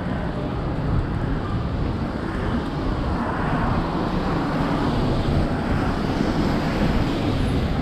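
Street traffic on wet pavement: a steady rushing of tyres on the wet road, swelling a little around the middle, over a low rumble of wind on the microphone.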